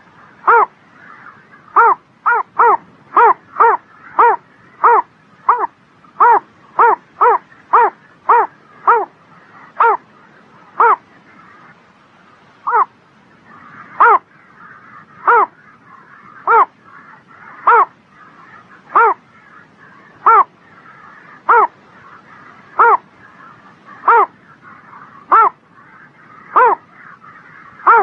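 A bittern giving a long series of short, harsh calls, each dropping slightly in pitch. They come about two a second at first, then slow after about ten seconds to an even one every second or so.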